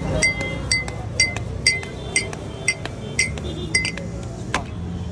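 Drinking glasses clinking in a steady rhythm, about two sharp, briefly ringing taps a second, with a louder single knock near the end.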